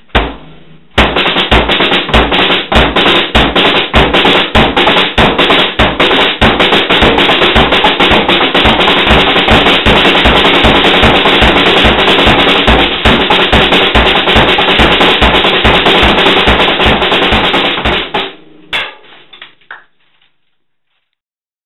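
Acoustic drum kit played as a loud, busy beat: a steady kick drum under snare hits and continuous cymbal wash. The playing starts about a second in, stops about 18 seconds in, and the cymbals ring out briefly before silence.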